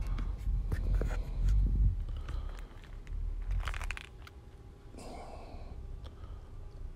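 Irregular crunching and crinkling handling noises, scattered clicks and rustles, over a low rumble. The noises are louder in the first two seconds and quieter from about three seconds in.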